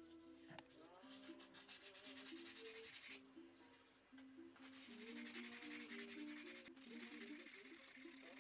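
Sandpaper rubbed by hand back and forth over a small carved wooden pendant, in quick even strokes. The sanding comes in two long stretches with a short pause about three seconds in.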